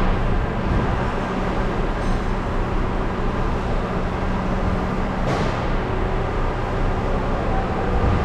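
Steady running noise of a car-service workshop: a constant machine hum under an even hiss, with a brief swell of hiss about five seconds in.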